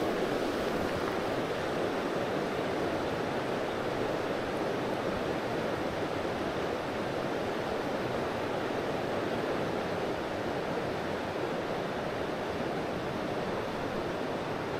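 Mountain river water flowing over rocky riffles: a steady, even rush.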